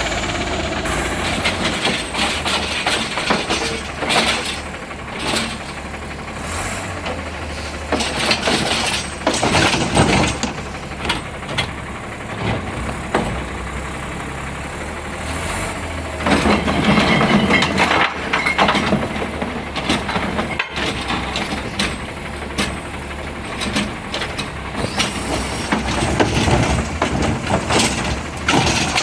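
Heil Rapid Rail automated side-loader garbage truck on an Autocar natural-gas chassis, engine running with repeated clanks and bangs of carts being lifted and dumped. The loudest stretch of bangs comes about halfway through.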